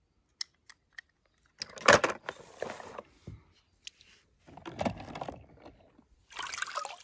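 Water sloshing and splashing as a hand rummages in a plastic tub of water, in three short bursts at about two seconds, five seconds and near the end, after a few faint clicks.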